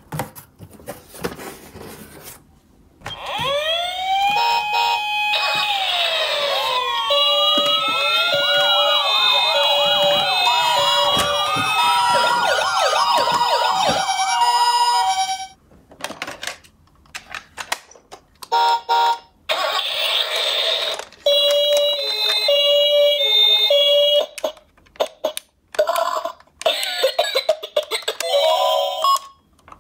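Several battery-powered toy ambulances and police cars sounding their electronic sirens at once for about twelve seconds, rising and falling wails overlapping with alternating two-note tones. Before and after, plastic toys clatter and knock, and short electronic beeps and tones come in bursts.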